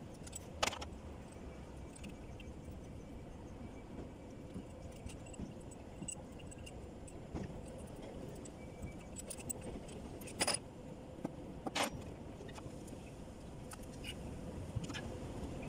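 Loose metal engine parts clinking and rattling as valve-train pieces are pulled out of a Toyota engine's cylinder head by hand during a top-end teardown. There are three sharper metallic clanks, about half a second in and twice around ten to twelve seconds in, over a steady low hum.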